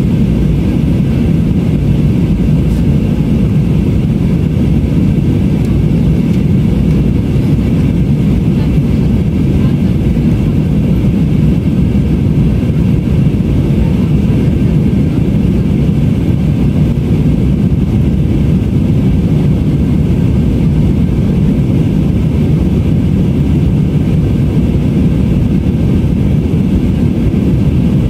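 Steady cabin drone of an Airbus A319 in flight, from its two IAE V2524-A5 turbofan engines and the air rushing past the fuselage. The sound is a deep rumble with faint steady tones above it.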